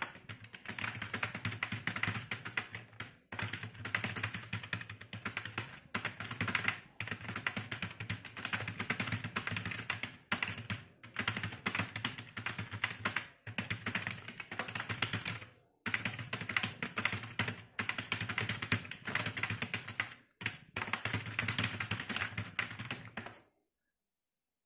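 Fast touch-typing at about 86 words a minute on a full-size external computer keyboard: a dense, continuous clatter of key clicks broken by brief pauses. It stops abruptly near the end.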